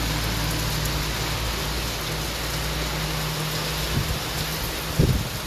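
Heavy cyclone rain falling steadily on the roads and roofs, with a low rumble under it and a couple of low thumps near the end.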